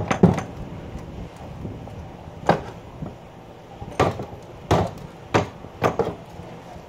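Repeated sharp whacks as a spider is swatted: two in quick succession at the start, one about two and a half seconds in, then a run of four more, each about two-thirds of a second apart.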